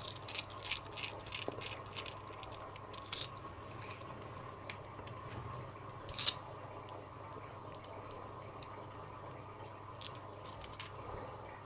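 Light metallic clicks and taps of small padlock parts and tools being handled during reassembly of a repinned padlock: a quick run of clicks at the start, a louder double click about six seconds in, and a few more near the end.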